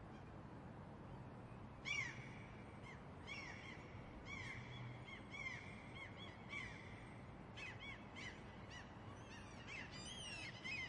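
Gulls calling: short, arching cries begin about two seconds in and come thicker and faster near the end, over a steady background hiss.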